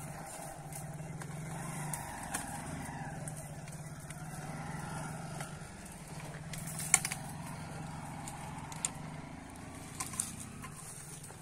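A motor vehicle engine running steadily, with a few short sharp clicks over it, the loudest about seven seconds in.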